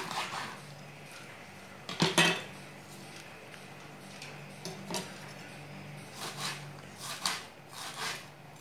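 Chef's knife chopping a green chile on a plastic cutting board: a few scattered knocks, a louder clatter about two seconds in, and a run of quick chops near the end.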